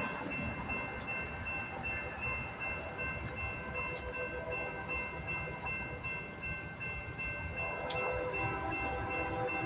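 Railroad grade-crossing warning bell ringing steadily while the crossing gates lower. A few seconds from the end, the horn of the approaching Union Pacific train begins to sound in the distance, a chord of several tones growing louder.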